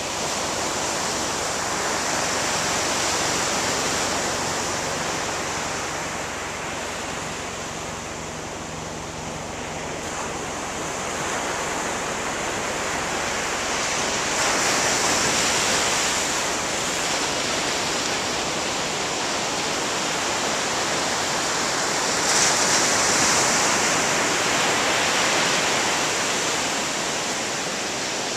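Ocean surf breaking on a sandy beach: a continuous rushing wash of waves that swells and falls back every few seconds, loudest about halfway through and again a little after two-thirds of the way.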